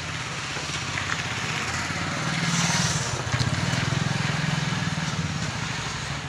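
A small engine running steadily, a low even hum that grows louder in the middle and eases off towards the end, over street noise.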